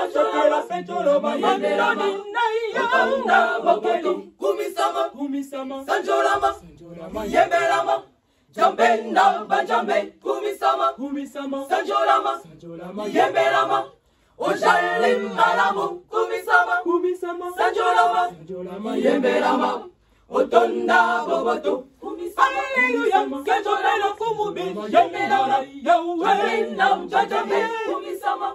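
Women's choir singing a Lingala worship song a cappella, in phrases broken by short pauses for breath.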